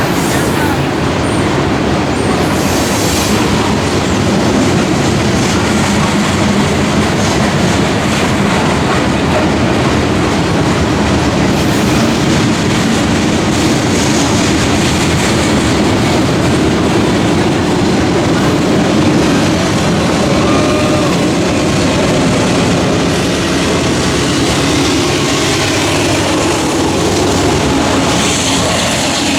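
Coal train's hopper cars rolling past close by: a steady loud rumble and rattle of steel wheels on the rails, with clickety-clack over the rail joints.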